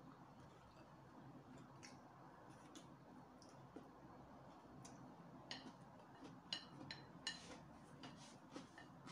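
Quiet eating sounds of someone eating noodles with chopsticks: faint scattered clicks and mouth smacks, with a cluster of sharper clicks a little past halfway.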